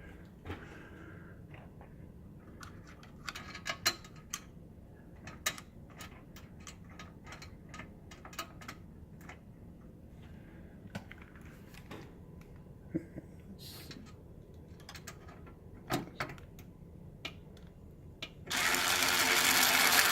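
Scattered light clicks and taps of screws and panel parts being handled, then, near the end, a small electric screwdriver motor running steadily, driving a screw back into the microwave's panel. The motor is the loudest sound.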